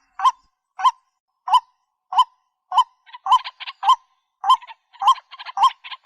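White-breasted waterhen calling: a steady series of short, hooked, honking notes, about one every half second or so, with quicker, fainter notes joining in between them from about halfway through.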